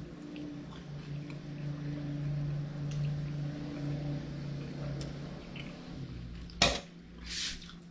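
A person chewing a hot chicken wing, with small wet mouth clicks over a steady low hum. About six and a half seconds in comes a sharp click, the loudest sound, followed by a short breathy hiss.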